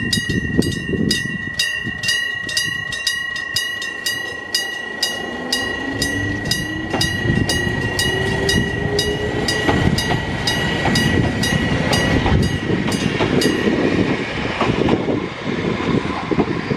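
Japanese railway level-crossing alarm ringing in a fast, even beat while an electric train passes over the crossing with a loud rumble of wheels on rail. Around the middle a whine rises steadily in pitch. The alarm stops about fourteen seconds in while the train's rumble carries on.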